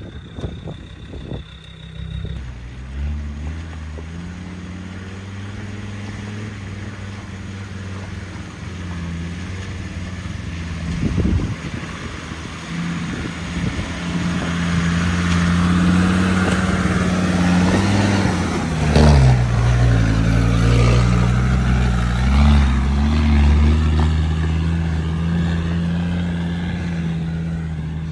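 Land Rover Discovery 2 Td5's five-cylinder turbodiesel running at low speed as it crawls over a rocky track, with tyres crunching on loose stone. It grows loudest about two-thirds of the way through as it passes close, then fades as it pulls away.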